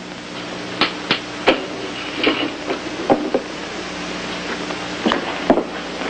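Scattered clicks and knocks from a man handling and setting up a film projector, about eight of them at uneven intervals over a low steady hum.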